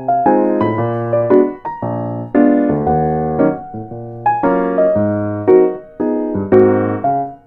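Background piano music: chords and a melody, each note struck and fading as the next comes in.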